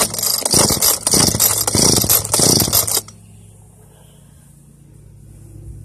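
Echo GT-230 string trimmer's two-stroke engine, cold and on choke, revved in several quick surges for about three seconds, then dropping back abruptly to a low, steady idle.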